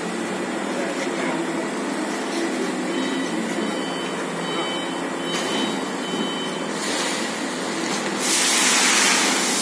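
Femaksan FEMAX2800 fertilizer bagging machine running with a steady hum, and about eight seconds in a loud hiss starts and holds.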